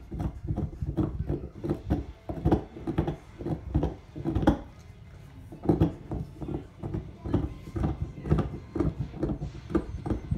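Pit bull gnawing a deer antler: irregular hard knocks and scraping as its teeth work the antler, two or three strikes a second, with a short lull about five seconds in.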